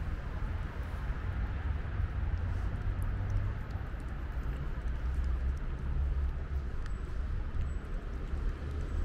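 Steady low outdoor rumble of wind and street background, with faint scattered ticks of a cat chewing wet food close by.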